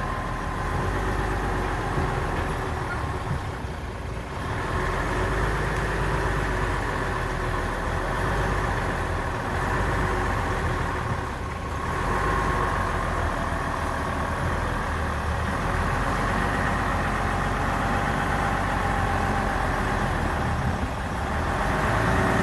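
Heavy diesel truck engine running steadily, with two brief dips in level about four and eleven seconds in.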